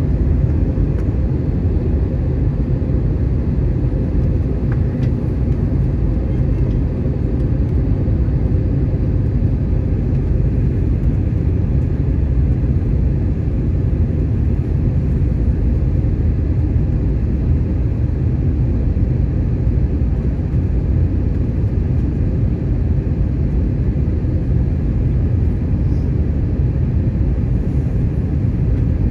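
Steady low rumble of a passenger airliner's cabin in flight on descent, engine and airflow noise heard from inside the cabin.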